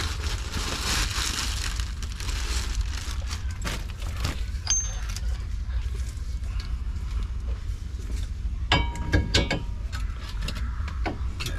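Brake parts and packaging being handled on a workbench. A hiss runs for about the first three seconds, then scattered clicks and knocks, and about nine seconds in a quick cluster of metallic clinks rings briefly.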